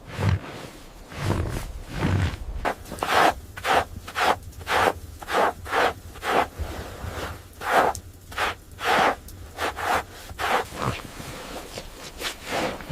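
Footsteps crunching through snow, about two steps a second, in a steady rhythm.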